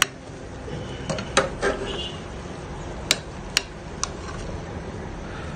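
Metal spoon and slotted spatula clinking and knocking against a cooking pot as a whole boiled chicken is turned in its broth. It comes as a scatter of sharp clicks: a cluster about a second in and three single knocks around three to four seconds in.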